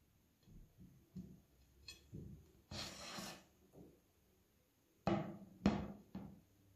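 Handling noise as a slice of cake is pulled out and lifted from a glass cake stand: light scattered knocks, a short scraping rustle, then two sharp knocks about five seconds in.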